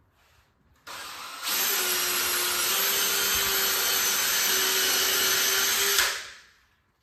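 Drill driver running at speed, driving a deck screw into the wooden bunk-bed frame, with a steady whine. It starts softly about a second in, runs at full speed from about a second and a half, and stops about six seconds in.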